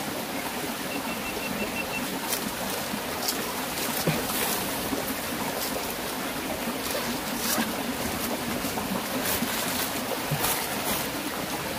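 Shallow stream running steadily over rocks, with a few light rustles and clicks from handling gear scattered through.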